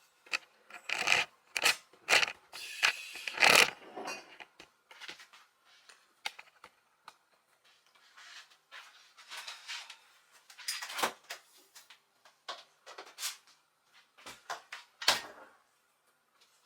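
Irregular clatter of kitchen things being handled: knocks, clinks and rustling, busiest in the first few seconds, with two sharper knocks later on.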